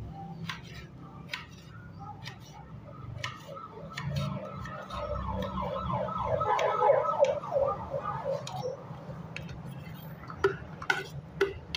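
Kitchen knife tapping on a ceramic plate while chopping garlic, in scattered uneven clicks. Near the end the knife and plate clink against a bowl as the chopped pieces are scraped off. A faint wavering sound runs in the background through the middle.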